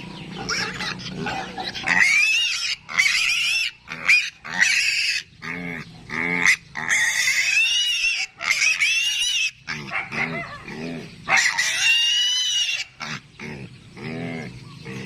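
Piglets squealing shrilly over and over in loud bursts, with lower grunts in between.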